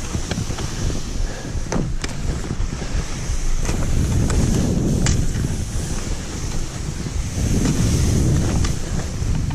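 Wind buffeting the microphone while skis scrape and hiss over wet snow with a crust on top during a fast downhill run, the rushing noise swelling and easing in waves, with a few sharp clicks.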